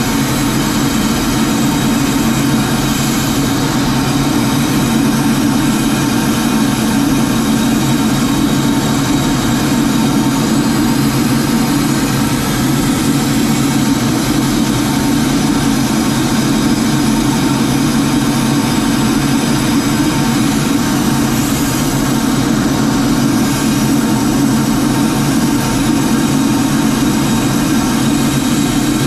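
Steady, unchanging drone of an aircraft in flight, heard from inside its cockpit: engine and rushing air, a heavy low rumble with thin steady whining tones above it.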